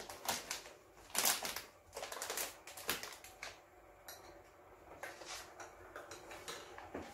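Foil coffee-pad bags being handled, crinkling and crackling in irregular bursts, busiest in the first few seconds and fainter after.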